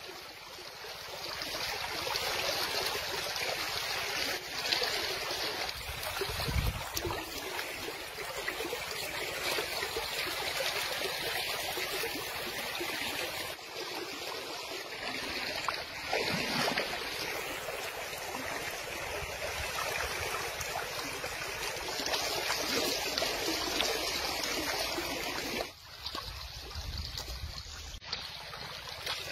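Shallow river water rushing steadily past the traps, a continuous rush of flowing water, broken by a couple of abrupt cuts.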